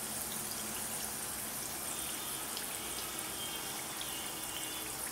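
Bedmi puris deep-frying in hot oil in a kadai: a steady sizzling hiss of bubbling oil.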